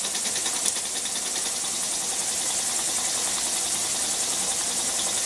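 Model vertical steam engine with a spool valve running fast on live steam: a steady hiss with a rapid, even pulsing, along with the noise of the boiler's propane burner.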